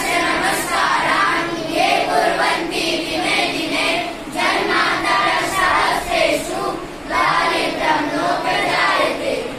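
A group of boys singing a prayer together in unison, in sung lines with brief pauses between them.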